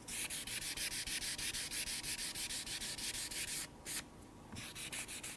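Fine P1000 3M flexible abrasive sheet rubbed back and forth by hand over the urethane finish of a guitar's peg head, a quick run of hissy sanding strokes, about four to five a second. It stops after about three and a half seconds, with one more stroke and then a fainter short run near the end.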